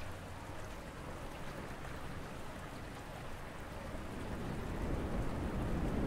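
A steady rain-like hiss that swells a little louder over the last two seconds.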